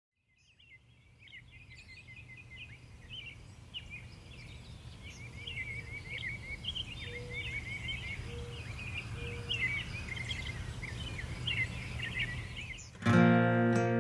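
Many small birds chirping and singing in quick, varied notes over a low steady hum, fading in from silence. About a second before the end, plucked acoustic guitar music cuts in loudly.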